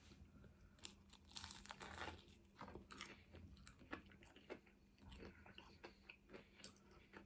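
Faint chewing of food close to the microphone: a person eating, with irregular small crunches and mouth clicks.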